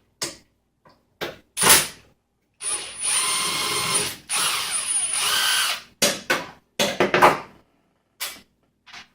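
Electric screwdriver running in two spells of about a second and a half each with a high whine, backing out the screws that hold a frame bar. Sharp clicks and knocks of the tool and metal parts come before and after.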